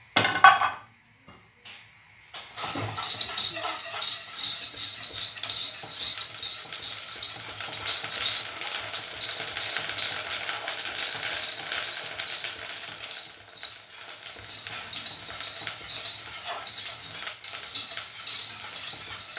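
A loud clank as a frying pan is set down on the hob. From about three seconds in, parboiled rice grains are stirred and scraped around a hot saucepan in a busy, continuous rattle with a crackling hiss, easing off briefly about two-thirds of the way through. The rice is being dry-roasted to puff into muri without sand.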